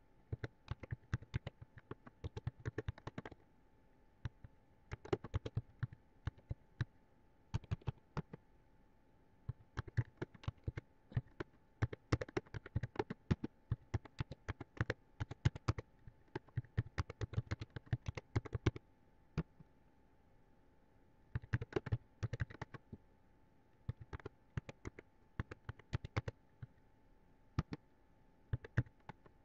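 Computer keyboard typing: runs of quick keystrokes broken by short pauses, over a faint steady hum.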